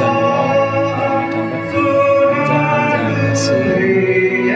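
Music with singing: a slow hymn with long held notes.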